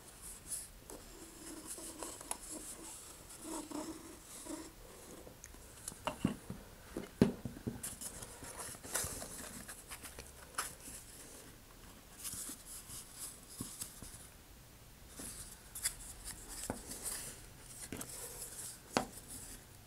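Faint handling sounds: hands rubbing and scraping on a cardboard coupler tube as glue is squeezed inside it and a wooden bulkhead disc is pushed in. Scattered light knocks and clicks run through it, the sharpest about seven seconds in and near the end.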